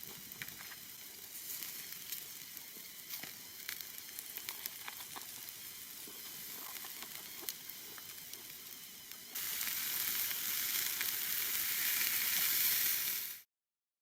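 Food sizzling and frying in a hot pan, with small crackles. It turns suddenly louder about nine seconds in, then cuts off abruptly.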